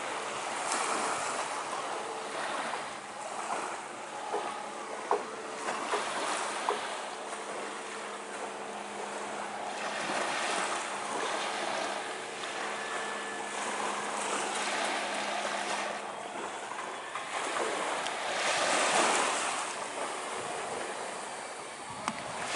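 Small waves lapping and washing against the shore, swelling and ebbing every few seconds. A faint steady hum lies underneath and fades out about three-quarters of the way through, and a few sharp clicks come around four to seven seconds in.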